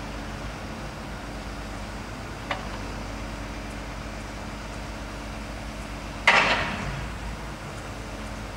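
Truck engine running steadily to power a truck-mounted grapple crane loading scrapped cars. About six seconds in comes one loud metal bang that rings briefly, as the grapple sets a car body down on the stack; a small click comes a few seconds before it.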